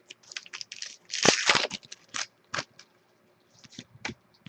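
Trading cards being handled and sorted on a table: quick small clicks and taps of card edges, with a louder papery rustle about a second in.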